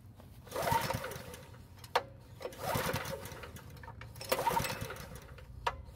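Recoil starter rope pulled three times, each pull spinning a Honda small engine over for about a second with its spark plug out and a compression gauge in the plug hole, as part of a compression test. There is a sharp click after the first pull and another near the end.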